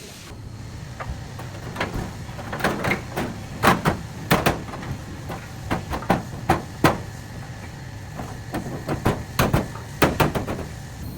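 Irregular sharp knocks and clatters of metal parts and tools being handled during car body repair, over a low steady hum.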